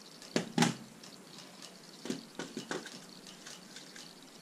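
Hard plastic toy blasters being handled and set down on a table: two sharp clacks about half a second in, then a run of lighter clicks and taps around two to three seconds in.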